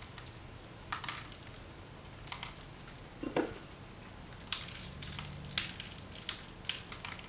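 Salt and pepper being put on raw turkey wings: sparse, irregular faint clicks and crackles.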